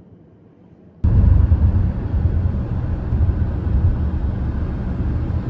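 Steady road and engine rumble heard from inside a car cruising on a motorway, with tyre and wind noise, starting abruptly about a second in after a quieter cabin hum.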